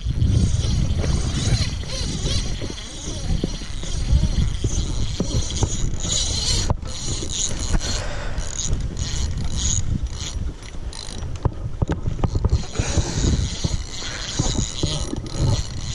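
Spinning reel being cranked close up, its gears whirring with many small clicks as line is wound in.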